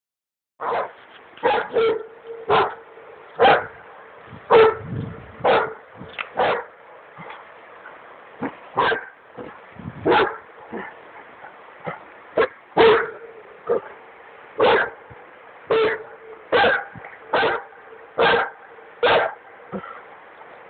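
Dogo Argentino barking over and over, in short sharp barks spaced irregularly about a second apart, at ducks on the river. Under the barks runs the steady rush of the swollen river.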